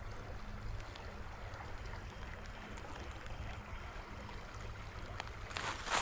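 Steady outdoor background at a creek beside a busy road: a low, even rumble of road traffic with a faint hiss of flowing water.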